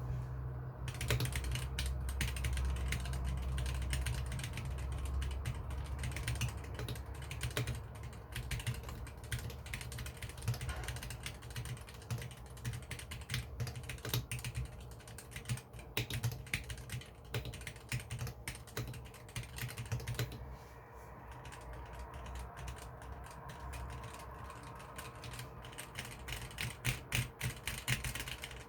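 Typing on a Womier K66 mechanical keyboard with unlubricated Gateron Yellow linear switches: a fast, continuous run of key clacks that thins out for a few seconds about two-thirds of the way through, then picks up again.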